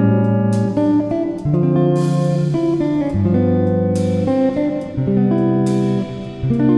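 Instrumental background music: pitched notes over a bass line, changing about every half second, with a bright hit every couple of seconds.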